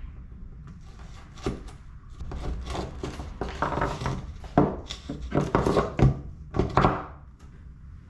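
Irregular knocks, taps and rubbing as a plastic AC port plug adapter is pushed into a hole in a boat's hull panel and handled to check the fit.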